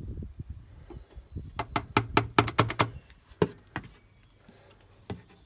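Engine oil glugging in low, uneven pulses as it is poured from a bottle into the engine's filler. About a second and a half in comes a quick run of sharp clicks and knocks, with two more shortly after.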